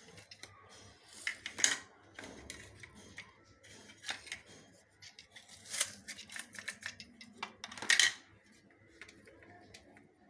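A blade cutting through onions by hand: irregular crisp slicing strokes and light clicks, the loudest about a second and a half, six and eight seconds in.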